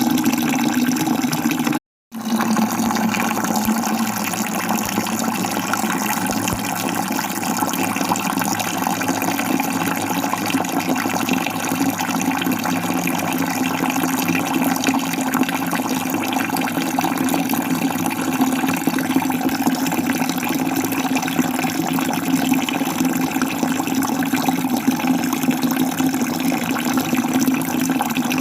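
Falling water rushing steadily, with a strong low band in the noise. The sound cuts out completely for a moment about two seconds in, then resumes unchanged.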